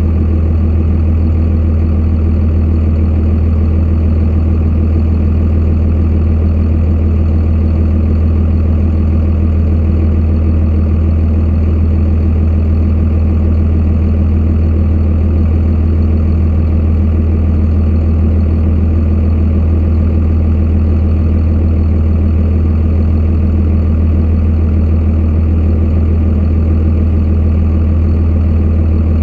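Truck engine running steadily with an even, unchanging low drone.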